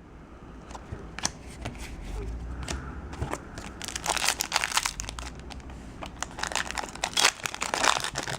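Foil trading-card booster pack wrapper crinkling and crackling as it is handled and opened, in irregular bursts that get busier about halfway through.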